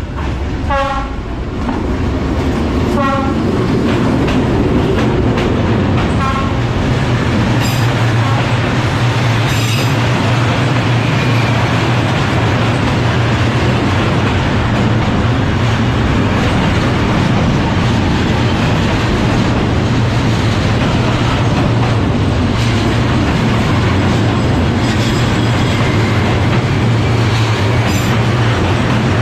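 Freight train of boxcars and container flat wagons passing at close range, a continuous loud rolling noise with a steady low hum underneath.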